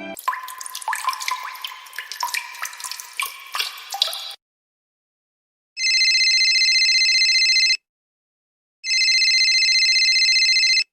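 Water dripping and bubbling, a dense run of drops and small plops lasting about four seconds. After a short gap, a telephone rings twice, each ring about two seconds long, with a second's pause between them.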